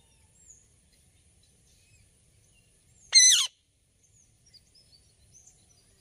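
Indian ringneck parakeet giving one loud call, about half a second long, about three seconds in. Faint high chirps sound in the background.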